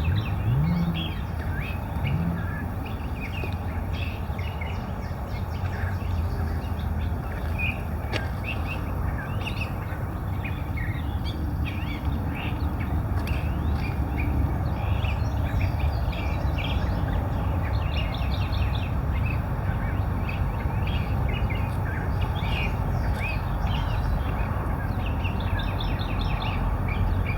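Birds chirping and calling over and over, many short notes, with a steady low rumble underneath.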